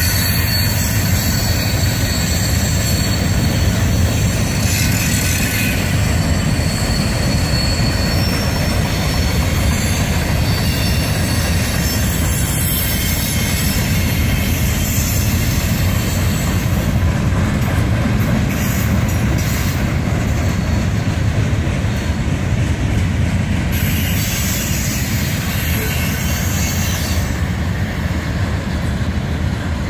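Freight cars of a long mixed freight train rolling steadily past: a continuous heavy rumble of steel wheels on rail, with thin high-pitched wheel squeal over roughly the first half that then fades.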